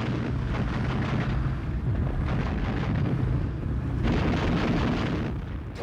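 Battle sound effects: a continuous heavy rumble of explosions over a steady low drone, easing off slightly near the end.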